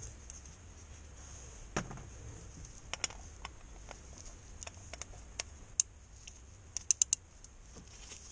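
Scattered light clicks and taps of a cup-type filter wrench being fitted and worked on a diesel fuel filter housing, with a quick run of three clicks near the end.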